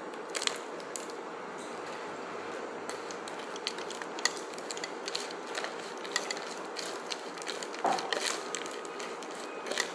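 Close-up eating sounds: chewing a bite of fried beef liver while a fork scrapes and taps rice in an aluminium foil takeaway container, giving many short, sharp clicks and crinkles over a steady hiss.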